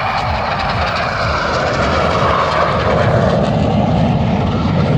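Jet noise from the Red Arrows' BAE Hawk T1 trainers flying over in formation, a steady loud rush that grows a little louder as they come closer.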